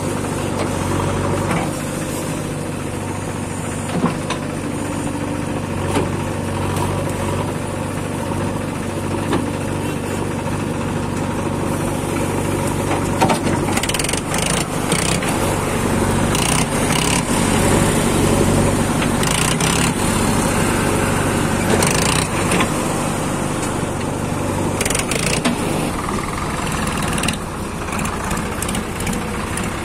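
JCB 3DX backhoe loader's diesel engine running steadily, louder through the middle, with scattered knocks and clatters as the front loader bucket works and tips soil into a tractor trolley.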